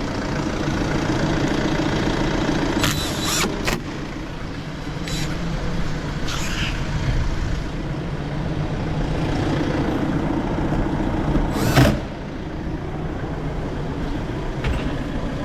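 A steady engine hum, typical of a car idling, broken by a few sharp clicks and knocks of tools and fixings, the loudest just before the end.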